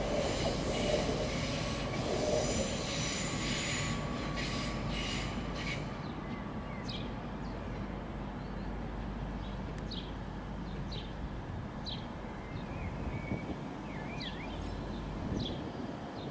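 A train running on the rails with high wheel squeal and rail noise, which fade over the first six seconds or so into a steady low rumble that drops away near the end. A bird chirps several times in the second half.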